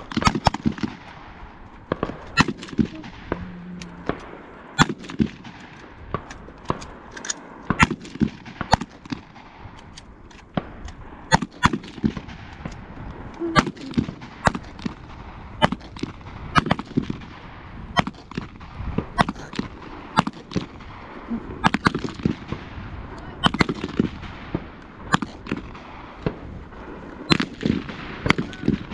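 Rifle and pistol shots from several shooters on a firing line: irregular sharp cracks of varying loudness, often one or two a second, sometimes overlapping.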